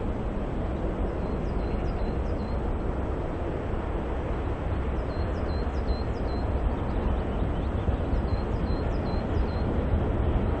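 BR Standard Class 4 2-6-4 tank locomotive 80072 working a train of coaches, heard at a distance as a steady rumble, with birds chirping over it.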